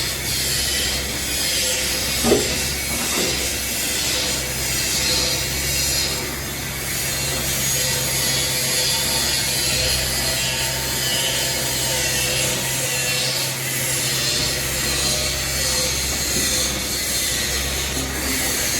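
Excavator diesel engine running steadily under load, with a continuous rasping, scraping noise from the bucket working in chalky soil and one sharp clank about two seconds in.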